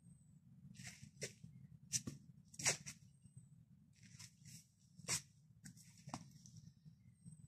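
Irregular short, sharp swishing and scuffing bursts, roughly one a second, from a person working through a karate kata: quick strikes and feet shifting on a paved path, the loudest about two, two and a half and five seconds in. A steady low rumble lies underneath.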